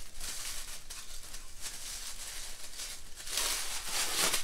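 Tissue paper rustling and crinkling as a small wrapped item is unwrapped by hand, louder for the last second or so.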